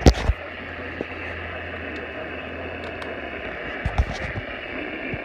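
Steady hiss of radio static from a receiver in a pause of the emergency broadcast, with a few sharp knocks: the loudest right at the start and another about four seconds in.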